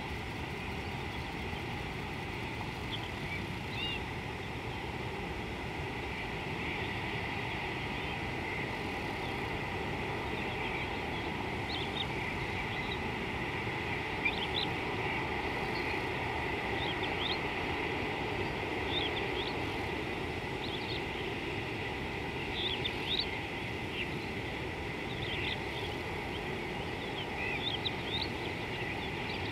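Birds chirping in many short calls, more often from a few seconds in, over a steady low rushing background and a thin steady high tone.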